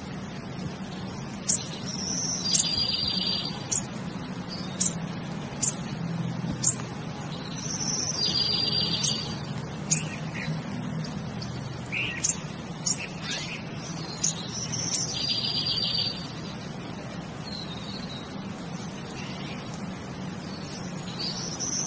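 Birds chirping: a high call lasting about a second repeats roughly every six seconds, with short scattered chirps between, over a steady low hum.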